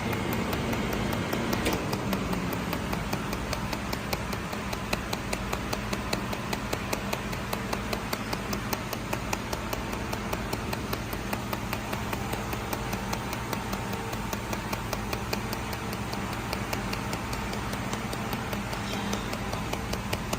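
Laser welding machine for mold repair firing pulse after pulse as it welds with 0.6 mm filler wire: a steady run of sharp ticks, several a second. Under the ticks is the machine's steady hum.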